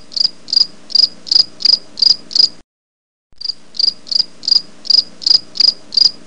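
A chirping sound effect: high, evenly spaced chirps about three a second, cutting off abruptly about two and a half seconds in and starting again after a silent pause of under a second.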